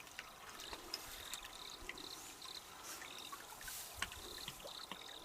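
Faint trickling water with scattered small clicks and taps, and short high chirps recurring through it.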